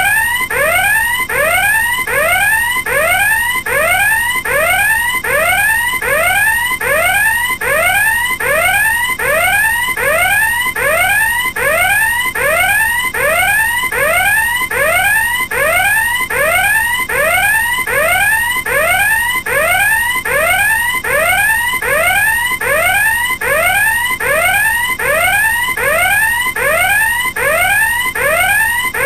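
Electronic alarm sounding continuously: a short rising whoop repeated over and over in a fast, even rhythm.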